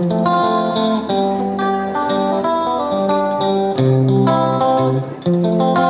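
Background music with a plucked guitar melody, a quick run of ringing notes.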